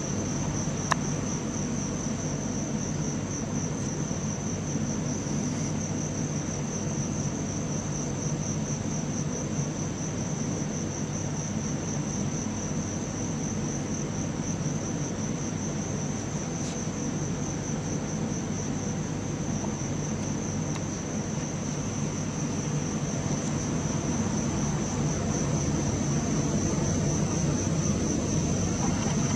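Crickets trilling steadily in one high, rapidly pulsing tone, over a low steady rumble that grows a little louder near the end. There is a single small click about a second in.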